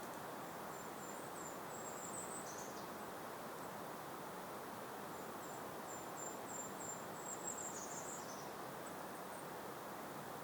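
A small songbird singing twice: a string of short, very high, thin notes that ends in a quick downward slur, over a steady, faint breeze hiss.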